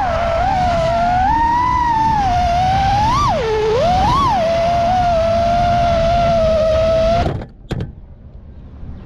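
FPV drone's brushless motors whining, the pitch rising and falling with the throttle. About seven seconds in the whine cuts off as the drone lands and disarms, with a brief knock just after.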